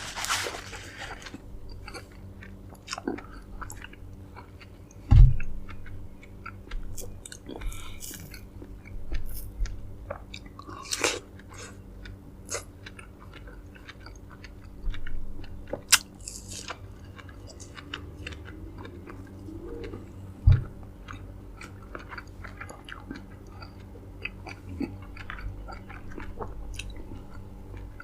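Close-up chewing and biting of dragon fruit: soft wet mouth sounds and many small clicks. Two dull thumps stand out, about five seconds in and again near two-thirds of the way through.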